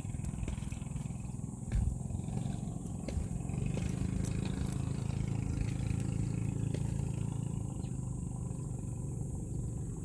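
Footsteps going down outdoor steps, as light scattered clicks over a low rumble that swells in the middle and eases near the end.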